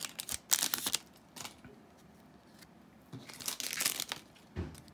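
Foil booster-pack wrapper crinkling as it is handled and opened, in two bouts, about half a second in and again about three seconds in, with a short knock near the end.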